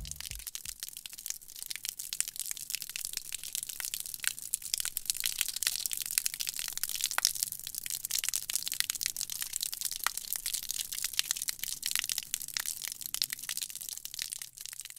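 Water splashing and spattering onto wet concrete, a dense steady crackle of drops.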